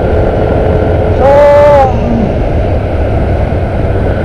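Steady wind and engine rumble of a motor scooter on the road. About a second and a half in, a horn sounds once for about half a second, a steady two-note tone that sags slightly as it stops.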